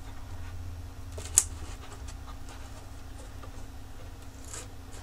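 Hands handling a plastic headlamp housing at its adjusters: one sharp plastic click about a second and a half in and a fainter tick near the end, over a steady low hum.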